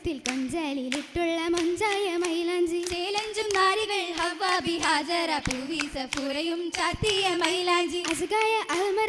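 Girls' voices singing an oppana song (Mappila song) without instruments, one wavering melody held in long lines. Sharp hand claps from the dancers keep a steady beat under the singing.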